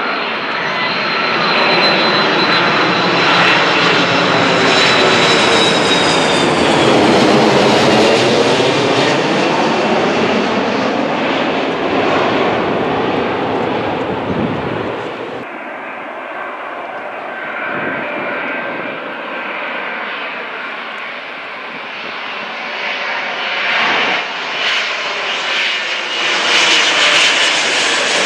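Twin-engine jet airliners passing low overhead on landing approach. The first jet's engines go over with a high whine that falls in pitch and are loudest just as it passes. After a sudden cut, an Air France Boeing 777 with its gear down builds in loudness as it comes overhead.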